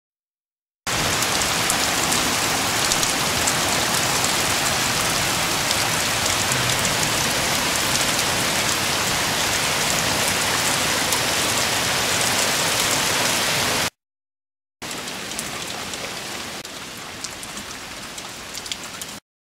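Heavy rain falling steadily as an even hiss. It cuts off abruptly about 14 seconds in, then resumes a second later somewhat quieter, with a few sharp drip ticks.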